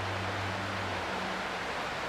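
Creek water flowing, a steady rushing hiss. A low hum underneath fades out about a second in.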